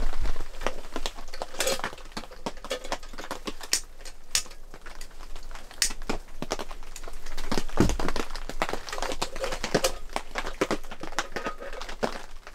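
Irregular small clicks and light metal rattles of a hurricane lantern being handled and lit, with one heavier knock about two thirds of the way in.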